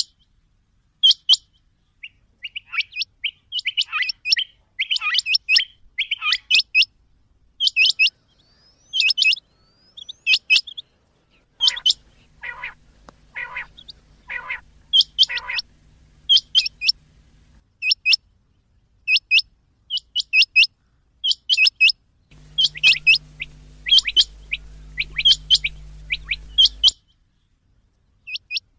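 Rain quail calling: a sharp, high double note repeated about once a second, with other calls overlapping in the first few seconds. Four lower, harsher calls come in the middle. A stretch of faint hiss with a low hum lies under the calls near the end.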